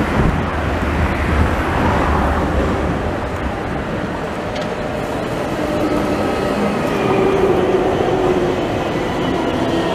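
Low-floor electric tram pulling into a stop and passing close by, wheels running on the rails. Its electric drive whines about two-thirds through, the tones dropping a little as it slows.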